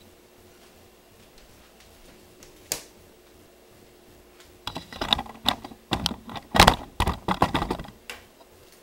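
Bell peppers set down and handled on a thin plastic cutting board on a wooden table. A single sharp knock comes a few seconds in, then a run of quick, irregular knocks and taps for about three seconds.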